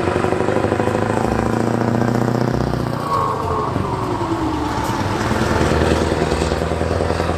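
Diesel engine of an articulated lorry pulling a box trailer as it drives past, running steadily, with a drop in pitch about three to four seconds in as it passes.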